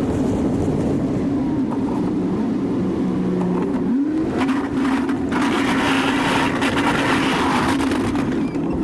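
Engine of a Chevy 2500 pickup pushing a snowplow, running steadily with its pitch dipping and then rising again about four seconds in. A rushing hiss joins from about four and a half seconds until near the end.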